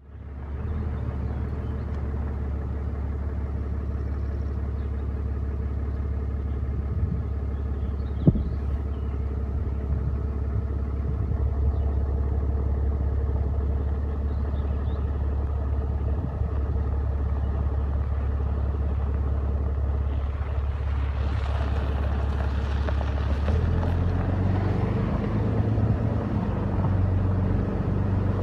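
Pickup truck driving on a dirt road, heard from inside the cab as a steady low engine and road hum. There is one sharp knock about eight seconds in. Near the end the road noise swells and the engine note shifts.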